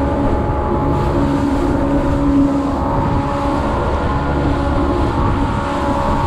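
Evinrude 115 outboard motor running steadily at cruising speed as the boat planes, a constant engine tone over a low rumble of water and wind.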